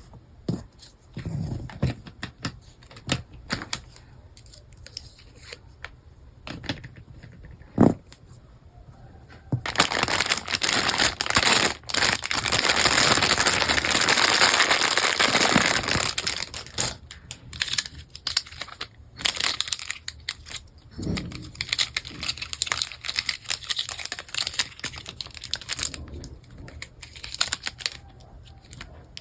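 Plastic packaging being handled during unboxing: scattered light clicks and taps of plastic pieces, and a few seconds of loud crinkling and tearing of plastic wrap about a third of the way in.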